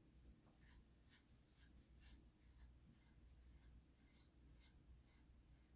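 A comb drawn through a Schnauzer puppy's coat in quick, faint scratchy strokes, about two a second.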